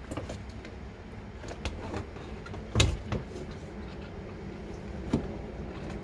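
Knocks and clicks from handling a dented car door, with one loud thump about three seconds in and a lighter knock near the end, over a steady low hum.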